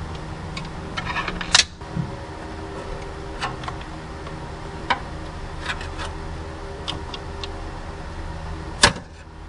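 A steady low hum with scattered light clicks; two sharp clicks stand out, one about a second and a half in and one near the end.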